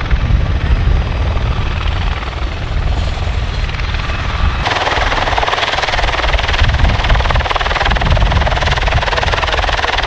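V-22 Osprey tiltrotor running on the ground with its nacelles upright: its two proprotors and Rolls-Royce T406 turboshaft engines make a loud, steady rotor and turbine rumble. About halfway through the sound turns abruptly harsher and brighter.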